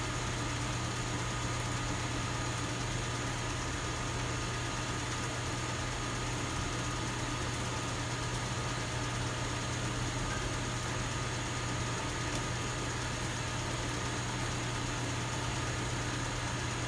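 Vacuum pump of a neon tube processing plant running steadily: an even, unchanging low mechanical hum.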